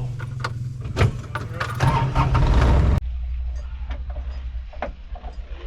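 A vehicle engine running steadily at low revs, with clanks and rattles over it. About three seconds in the sound changes abruptly and the engine hum drops lower.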